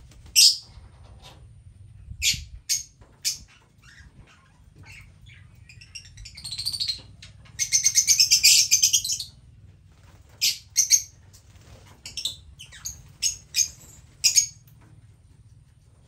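Lovebirds calling with sharp, high-pitched chirps: a few single calls spaced out, a longer burst of rapid chattering about seven to nine seconds in, the loudest part, then a run of quick calls near the end.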